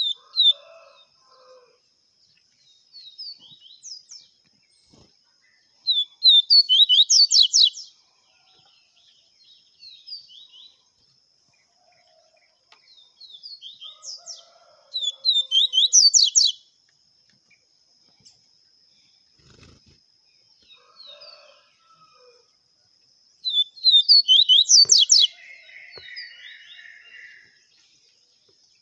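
Double-collared seedeater (coleiro) singing its 'viviti' song: three phrases of quick high repeated notes about eight seconds apart, each building to its loudest notes near the end. A faint steady high whine runs underneath.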